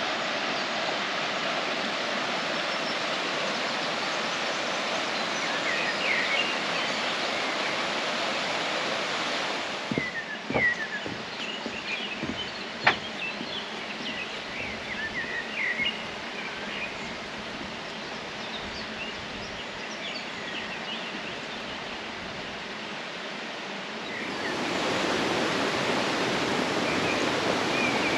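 River water rushing steadily, with short bird chirps now and then. About ten seconds in the rush drops and a few sharp knocks sound, then it grows louder again near the end.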